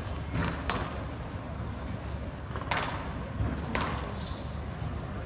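Squash rally: the ball is struck by rackets and hits the court walls, giving about four sharp cracks at uneven spacing. Short high squeaks come between the cracks.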